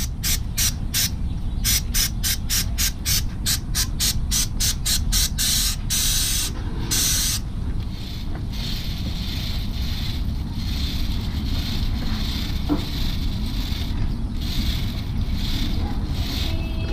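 Aerosol chain cleaner sprayed onto a motorcycle chain in quick short bursts, about four a second, then two longer sprays. After that comes a stiff brush scrubbing the chain in repeated strokes, over a steady low rumble.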